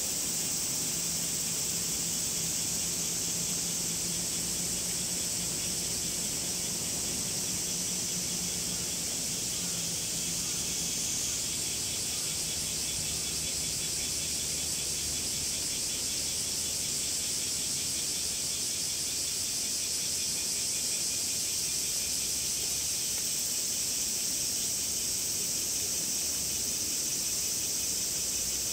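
Cicadas singing in a steady, high-pitched chorus with a fast buzzing pulse.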